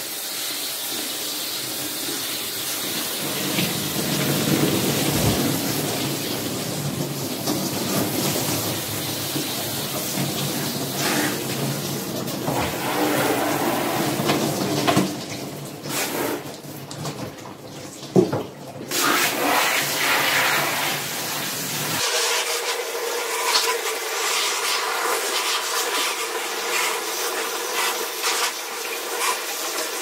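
Garden-hose spray nozzle jetting water onto a split air conditioner's indoor coil, the runoff splashing into a plastic bucket: a steady rush of water with a few sharp knocks past the middle. About two-thirds through, the rush turns thinner and hissier.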